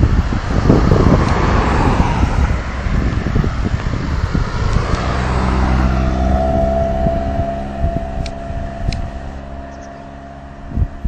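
Road traffic: a car passing close by, loudest in the first few seconds, then a vehicle engine running steadily from about halfway through. Wind buffets the microphone.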